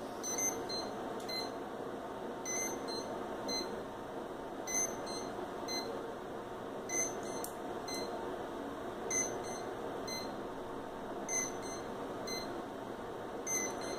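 Short, high electronic beeps in groups of three about half a second apart, a new group roughly every two seconds with its first beep the loudest, over a steady hiss.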